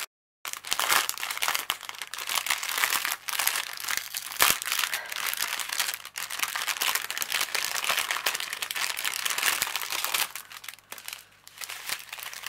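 Thin clear plastic bags and wrap crinkling and rustling as hands handle a strip of bagged diamond-painting drills and the plastic-covered canvas. The sound breaks off for a moment just after the start and turns quieter about ten seconds in.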